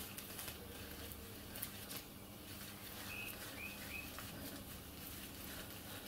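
Faint irregular clicks and rattles of a vintage Huret cycle speedometer's repaired inner cable being turned by hand to drive the speedo head. Three short high chirps come a little past the middle.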